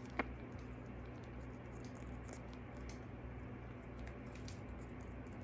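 Goffin's cockatoo eating a piece of oatmeal raisin cookie: faint crunching and small beak clicks as it bites and chews, with one sharp click shortly after the start. A faint steady low hum lies underneath.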